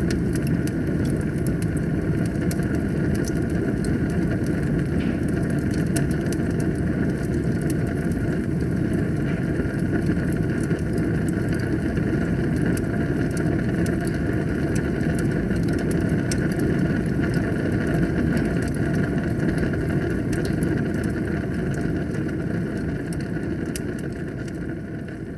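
Wood fire burning in a fireplace: a steady low rumble of flames with frequent sharp crackles and pops, fading out near the end.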